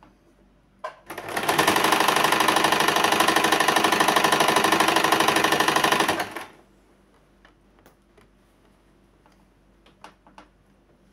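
Small electric domestic sewing machine stitching a seam at a fast, even pace for about five seconds, starting about a second in and stopping abruptly. A few faint clicks come before and after.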